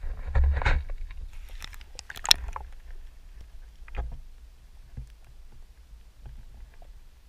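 Water sloshing around an action camera as it goes under in a rock pool, then muffled underwater sound with scattered clicks and soft knocks, the clearest knock about four seconds in.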